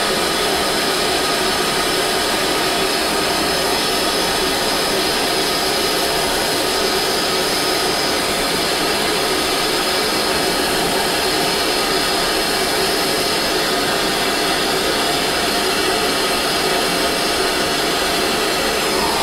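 Gas soldering torch burning with a steady rushing hiss as its flame heats a steel joint for silver soldering.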